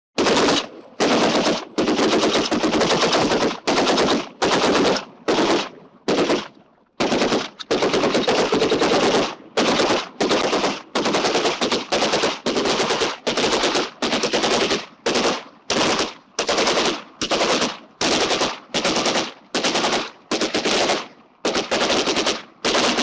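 Retro stock movie and cartoon sound effect of machine-gun fire: many short bursts of rapid shots, one after another with brief gaps between them.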